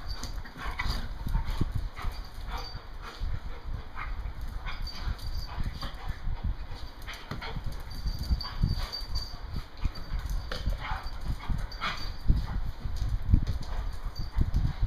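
Several dogs play-fighting on a tiled floor: scuffling, with claws clicking and paws thudding on the tiles, and dog noises mixed in throughout.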